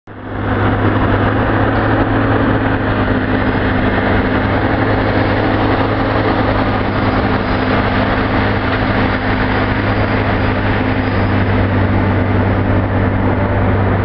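An engine running steadily at a constant speed: a loud, unbroken low drone with a steady hum that doesn't change in pitch.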